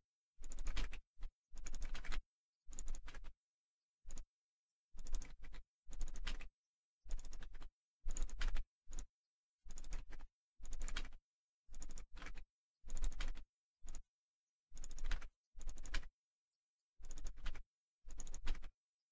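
Computer keyboard typing: short bursts of keystrokes roughly once a second, with dead silence between the bursts.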